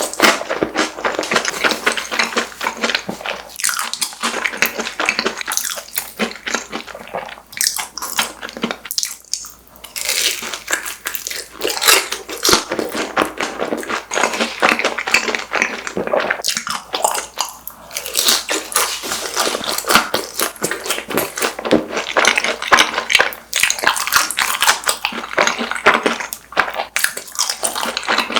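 Close-miked crunchy chewing of crispy fried side dishes coated in Bburinkle seasoning: rapid crackling crunches, with a few short pauses.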